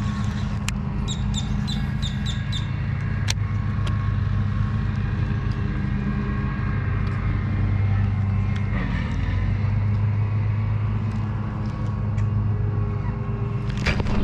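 A boat motor running steadily, a low hum that grows a little louder about halfway through.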